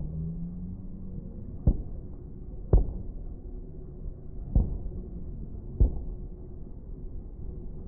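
Fireworks shells bursting: four deep booms about one to two seconds apart, over a steady low rumble.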